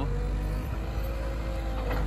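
Diesel engine of a Liebherr road-rail excavator running steadily as its grapple works: a continuous low drone with a few steady tones above it.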